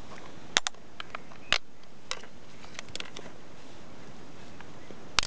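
Scattered sharp plastic clicks and taps, a dozen or so, from the EasyRad GPR's battery and its holder being handled and fitted onto the handle, over a steady faint hiss.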